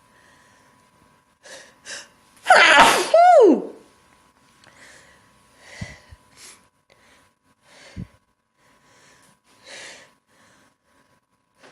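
A person sneezing once into a handkerchief: two quick breaths in, then one loud sneeze lasting about a second, its voiced end falling in pitch, followed by a few short breaths.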